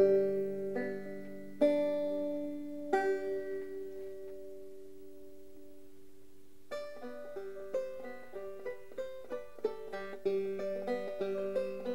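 Background music on a plucked string instrument: a few chords struck and left ringing, then a quicker run of picked notes from about seven seconds in.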